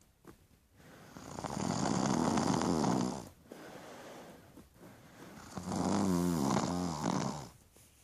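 A sleeper snoring: two long snores about four seconds apart, each about two seconds long, with a quieter breath between them.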